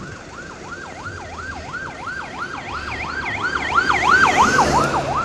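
Electronic siren on a bus's telolet horn kit, yelping with a fast up-and-down pitch sweep about three times a second and getting louder toward the end.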